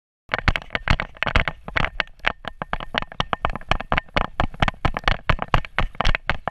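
Rapid, irregular knocking and rattling, several knocks a second, from a GoPro camera strapped on a running dog's back, jolted with each stride. It starts abruptly a moment in.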